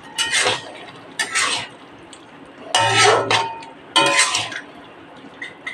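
A metal spatula scraping and stirring ridge gourd curry around a metal wok: four scrapes, each about half a second long, with a light metallic ring.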